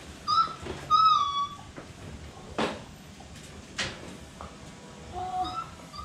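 Phu Quoc Ridgeback puppy giving short, high-pitched whining cries, two loud ones in the first second and a couple of weaker ones near the end, with two sharp knocks in between.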